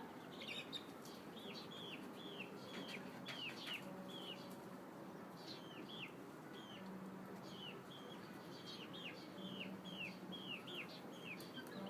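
Birds chirping: many short, high notes that sweep downward, repeated throughout in loose runs, with a few faint low held tones in between.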